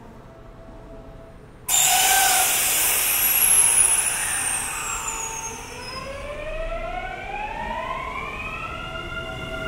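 An electric train pulling away: the running noise starts abruptly about two seconds in, then the whine of its inverter-driven traction motors climbs steadily in pitch as it accelerates.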